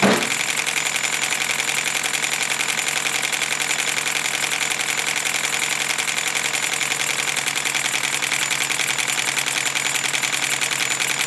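Three model steam engines, a two-cylinder marine compound, a Stuart 10V and a PM Research oscillator, running in series on compressed air: a fast, steady clatter of exhaust beats with air hiss. The air is turned down close to the minimum pressure that keeps all three running.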